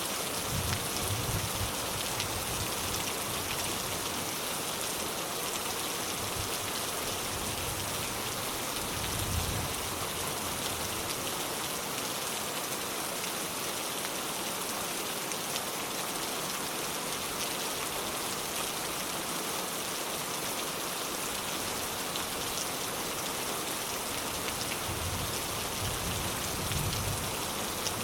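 Steady rain falling, an even dense hiss. There are brief low rumbles about a second in, near the middle and near the end.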